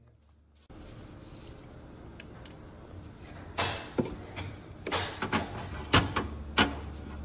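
Metal hand tools knocking and clanking at a seized torx fill plug on an automatic gearbox: about six sharp knocks in the second half, over a steady workshop hum.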